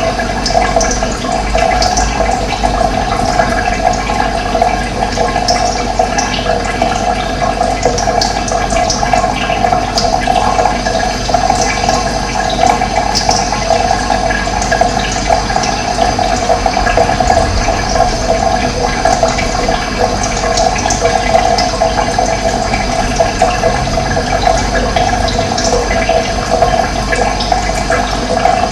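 Running water, a steady rush, with short bird chirps scattered over it.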